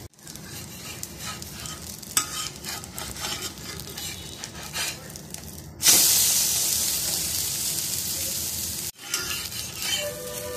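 Egg omelette frying on a hot flat iron tawa: a steady sizzle with a sharp click about two seconds in. About six seconds in, as the omelette is flipped onto the pan, the sizzle jumps suddenly to a loud hiss that slowly fades. It stops abruptly about nine seconds in, then quieter sizzling resumes.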